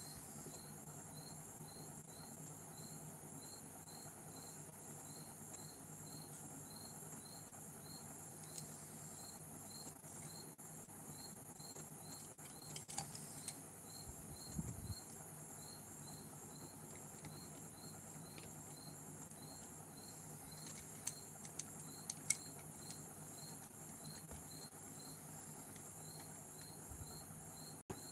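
A cricket chirping steadily, about two to three high chirps a second, over a faint steady hiss. A few soft clicks come about halfway and again near the end.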